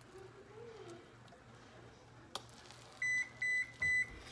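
Electric oven control beeping three times, short high-pitched beeps about half a second apart near the end, typical of the oven signalling that preheating is done. A little before them a metal spoon clicks once against the dish.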